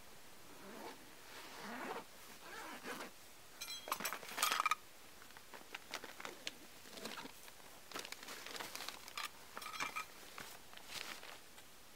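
A nylon backpack being handled, opened and rummaged through: fabric rustling and small clicks of buckles and gear, with a metallic ringing clink about four seconds in and another near ten seconds.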